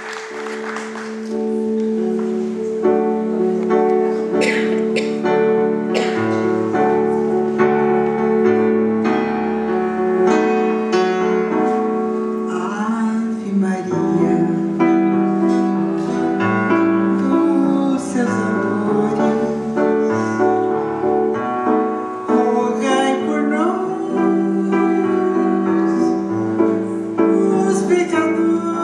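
A woman singing over keyboard accompaniment that holds long, steady chords.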